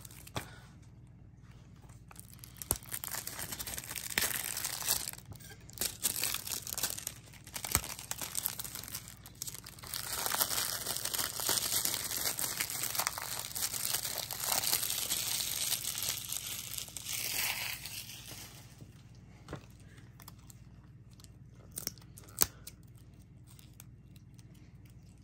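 Plastic shrink-wrap being torn and peeled off a Blu-ray case by hand, a stretch of crinkling and tearing with many small crackles that trails off into a few sharp clicks near the end.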